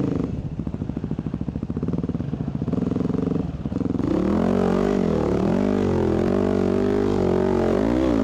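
Dirt bike engine heard from the rider's seat, chugging unevenly at low revs for the first few seconds, then revving up and down repeatedly over rough trail.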